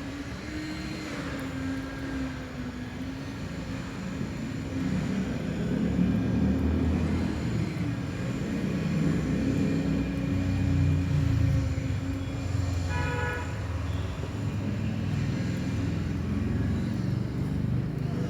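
Concrete mixer machine with lift running steadily with a constant hum. A heavier low rumble builds about five seconds in and carries on.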